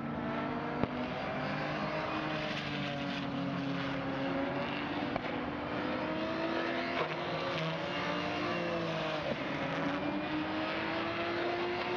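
Ginetta GT race car's V6 engine running hard and steadily, its pitch slowly rising and falling as the revs change.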